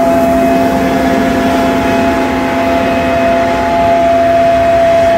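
Combine harvester running close by: a loud, steady engine and machinery drone with a constant whine above it.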